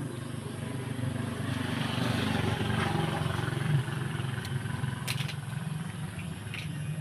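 A low engine hum that grows louder over the first few seconds and then eases off, with a few short clicks near the end.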